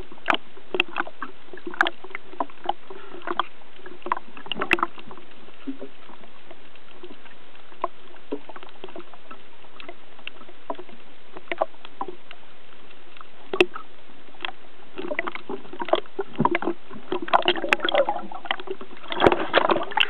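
Underwater sound heard through a waterproof camera housing on a speargun: a steady hiss with scattered clicks and knocks, growing busier near the end.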